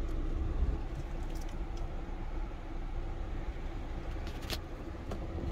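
Cabin of a 2009 Toyota Vitz with its 1300cc engine idling and the air-conditioning blower running, a steady low rumble with a faint hum. A few light clicks come from the climate-control knobs, the plainest about four and a half seconds in.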